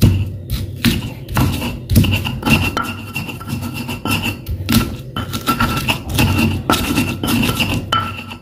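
Stone pestle grinding garlic cloves with coarse salt and chicken bouillon powder in a stone mortar, pounding it to a paste: repeated rasping strokes of stone scraping on stone, about one or two a second.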